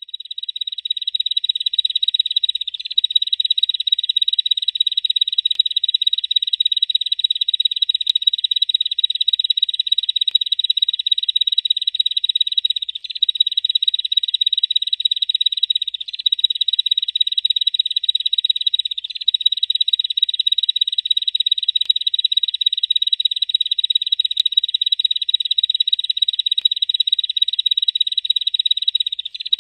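Bar-winged prinia (ciblek) giving its 'ngebrem' call: a fast, high buzzing trill held on continuously, broken only by a few very brief pauses.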